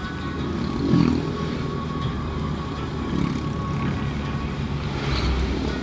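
Steady low rumble of a vehicle on the move, heard from inside the cabin, with a brief louder swell about a second in.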